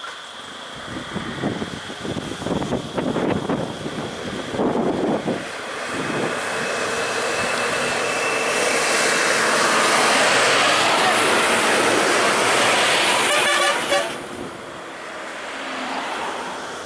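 A diesel Ashok Leyland bus drives past close by. Its engine and road noise build to a loud rush and then cut off suddenly about fourteen seconds in, with horn toots.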